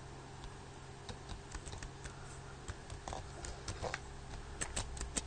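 Laptop keyboard being typed on: faint, irregular key clicks, coming quicker near the end, over a low steady hum.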